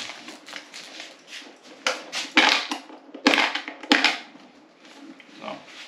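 Rustling and crinkling from items being handled, in several short sharp bursts between about two and four seconds in.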